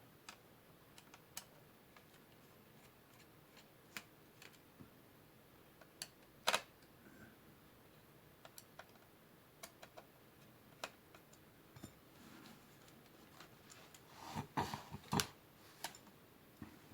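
Sparse small clicks and taps of a screwdriver removing the three keyboard screws from the underside of a laptop. There is a louder tap about six seconds in and a quick cluster of clicks near the end.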